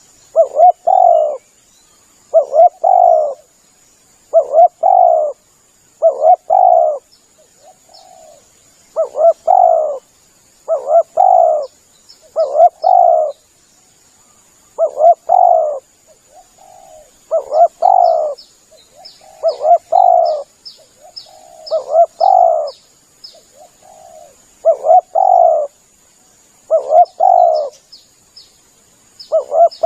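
Spotted dove (tekukur) cooing over and over as a hunting lure call. Each phrase is two or three short coos and repeats about every two seconds. Faint runs of quick high chirps sound behind it.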